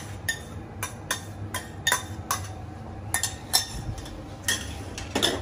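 Metal spoon clinking and scraping against a stainless steel saucepan and bowl as curry is spooned out, about two or three sharp clinks a second with a brief ring, and a heavier clatter near the end.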